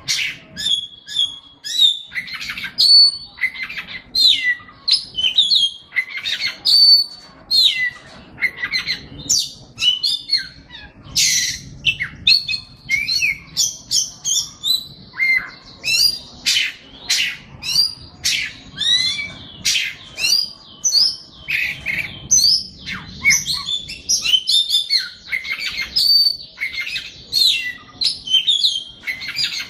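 A songbird singing a fast, unbroken song of varied chirps, whistles and quick trills.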